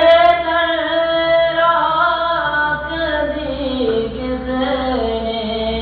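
A single voice singing slow, long-held notes that glide up and down in pitch, over a steady low electrical hum.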